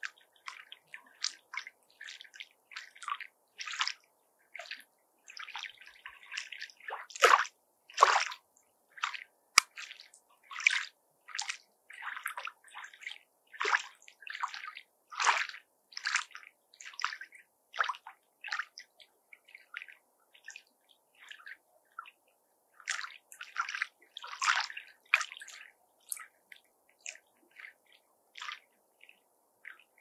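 Small lake waves lapping against the shore as a run of short, irregular splashes, with louder ones about seven and eight seconds in, again near the middle, and about three quarters through.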